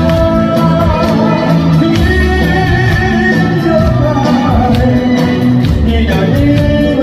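Korean trot music played loud, with a steady beat, a repeating bass line and a wavering melody line over it.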